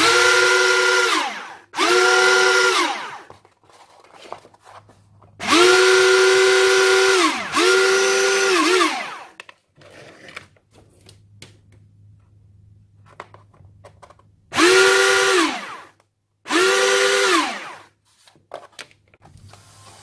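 Four 180-size brushed DC motors, geared together on one propeller shaft, test-run on a battery: six short runs in three pairs, each spinning up to a steady high whine and then winding down in pitch as the motors coast to a stop.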